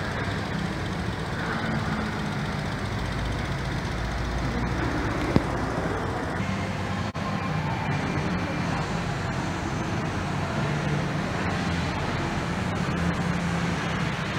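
Steady background vehicle and traffic noise with a low droning hum, and a single sharp click about five seconds in.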